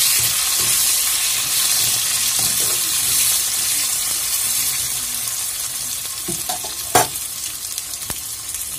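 Onion, tomato, garlic and ginger pieces sizzling in hot oil in a karahi while a spatula stirs and scrapes them, the sizzle easing off gradually. A single sharp knock sounds about seven seconds in.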